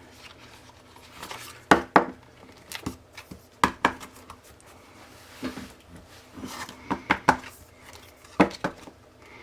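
A paper zine being handled on a tabletop: a series of sharp clicks and taps, several in close pairs, with brief soft paper rustles.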